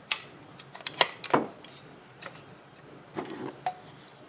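Tripod legs being fitted into the tripod's base: a handful of sharp clicks and knocks, one at the very start, two about a second in, and a few softer ones near the end.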